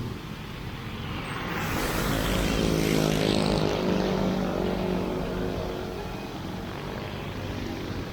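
A passing engine: a low hum with several even tones that builds to its loudest about three to five seconds in and then fades, over steady background noise.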